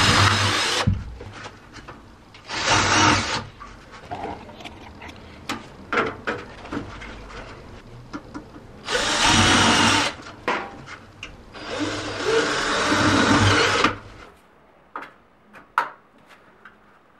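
12-volt cordless drill running in several bursts of one to two seconds as it works into a steel drywall profile, with small clicks and knocks between bursts. It goes quiet apart from a few clicks near the end.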